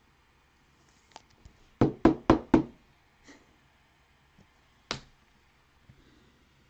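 Four quick knocks on a hard surface, about a quarter second apart, then one more knock a couple of seconds later, with a few faint clicks in between.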